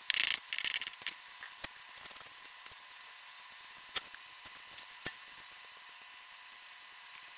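Faint, scattered clicks and taps of small tools and parts being handled on a workbench, with a brief scraping rustle at the start, over a faint steady tone.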